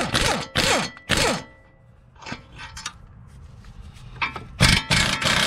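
Impact wrench, turned down to a low power setting so as not to shear the bolts, hammering bolts loose: several short bursts in the first second or so, then a longer run about four and a half seconds in.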